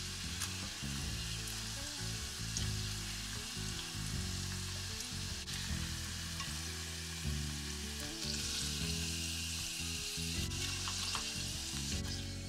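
Breaded cheese croquettes deep-frying in hot oil in a pot: a steady crackling sizzle that swells for a couple of seconds past the middle, with a few light clicks as they are rolled with chopsticks.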